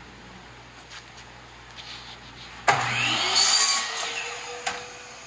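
A sliding miter saw switches on about halfway through: its motor whines up to speed, and the blade cuts through a wooden board in a loud burst. The cut dies away while the blade keeps spinning with a steady whine.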